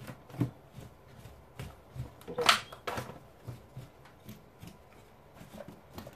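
Hand tossing oiled, seasoned potato cubes in a disposable aluminium foil tray: soft rustling and clicking of potato pieces against each other and the foil, with one louder crackle about two and a half seconds in.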